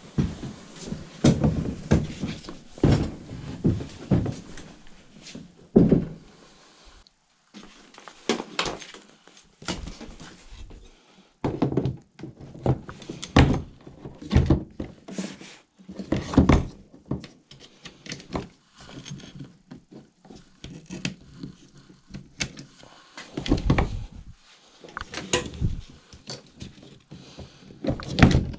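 Irregular thunks, knocks and rattles of a Hobie kayak's metal-framed mesh seat being handled and shifted on the plastic hull.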